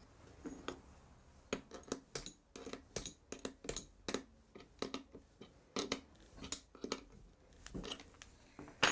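Trend T5 router's collet nut being worked with a spanner to secure a newly fitted cutter: a string of irregular sharp metal clicks and taps, with the loudest just before the end.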